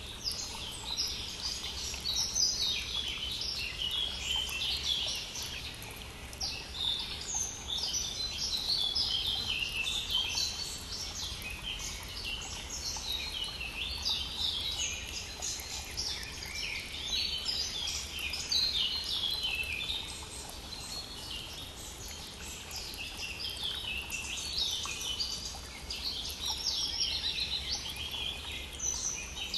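Many songbirds singing at once, a dense chorus of overlapping high chirps and quick descending phrases, over the steady rush of a brook.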